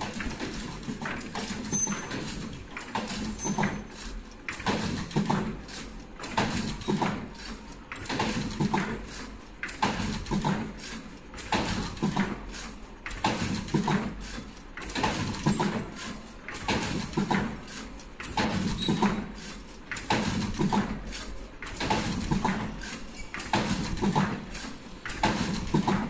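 Richpeace surgical mask production line running: a rhythmic cycle of mechanical clacks and knocks that repeats about every one and a half seconds, over a faint steady high whine.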